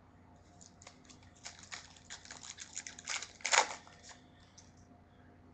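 A foil trading-card pack wrapper being torn open and crinkled: a quick series of rustles and rips, the loudest rip about three and a half seconds in.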